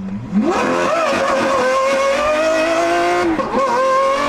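Lamborghini Aventador SVJ's V12, through a Gintani F1 exhaust, revving hard under full-throttle acceleration: the pitch shoots up just after the start, keeps climbing, dips briefly about three and a half seconds in at a gear change, then rises again.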